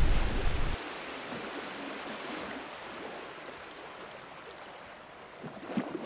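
Wind on the microphone: heavy low buffeting at first, dropping after a moment to a steady rushing hiss, with a few light knocks near the end.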